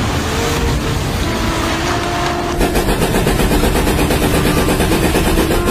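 Loud, steady heavy-machinery drone with a low rumble. About two and a half seconds in it switches abruptly to a rapid, even pulsing engine sound from an excavator's engine working on demolition.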